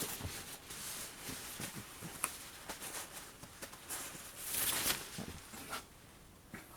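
Rustling fabric and light knocks as a backpack is handled, with a louder swish of rubbing fabric about four and a half seconds in.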